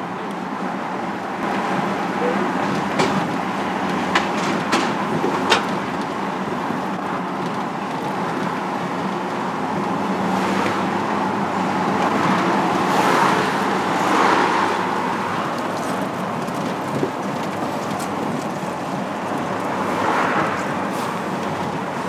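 A motor vehicle on the road: steady engine and road noise with a low drone. It swells in the middle and again near the end, and a few sharp clicks come in the first few seconds.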